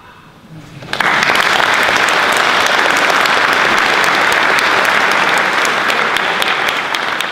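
Audience applause that breaks out suddenly about a second in, right after the violin piece ends, holds steady and starts to ease near the end.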